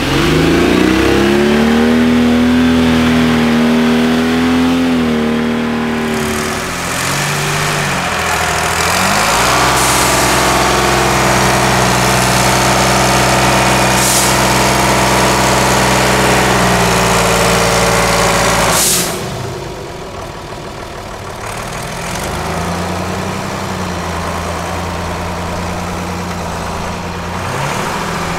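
Off-road trial truck engines working hard. The engine revs rise in pitch in the first seconds, then run steadily and loudly under load, drop off suddenly about two-thirds of the way through, and pick up again at lower revs near the end.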